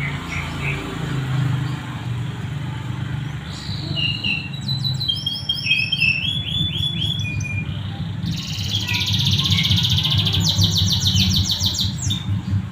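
Domestic canary singing vigorously: a varied song of short whistled notes and rolling trills, building to a fast, dense trill about two-thirds of the way through. A low steady rumble lies underneath.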